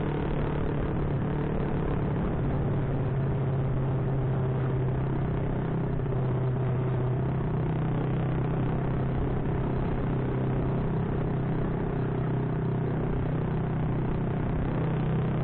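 Honda Supra single-cylinder four-stroke motorcycle engine running while riding, its steady engine note dipping slightly in the middle of the stretch and picking up again, over a haze of wind and road noise.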